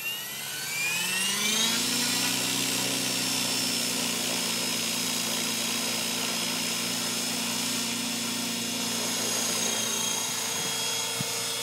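Align T-Rex 600 Pro radio-controlled helicopter spooling up: its whine rises in pitch for about the first two seconds, then holds steady at full rotor speed, with the helicopter lifting off near the end.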